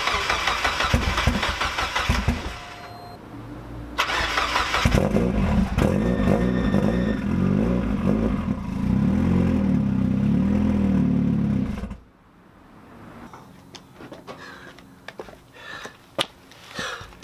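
Mazda Miata's four-cylinder engine cranking on the starter, pausing, then cranking again and catching about five seconds in. It is a cold start after the car sat three weeks on E85. It runs for about seven seconds with its speed rising and falling, then is shut off abruptly when the gauge reads no oil pressure, which turns out to be only an unplugged oil pressure sensor.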